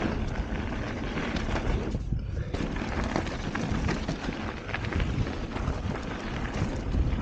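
Mountain bike (a 2015 Norco Range enduro bike) riding fast down a dirt trail: a steady rush of tyre noise and wind on the camera microphone, with a constant patter of small rattles and clicks from the bike over the bumpy ground. The higher hiss drops out briefly about two seconds in.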